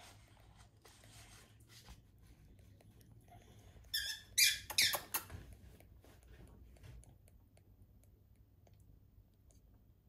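Three-week-old rainbow lorikeet chick squeaking while being spoon-fed: a short burst of high, loud begging squeaks about four seconds in, with faint soft squeaks and rustles otherwise.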